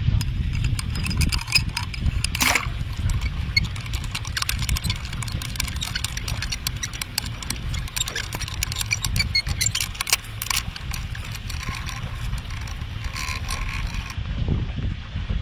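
Underwater sound picked up by a camera lowered on a bait rig: a steady low rumble with many sharp clicks and crackles. The crackling stops about a second before the end.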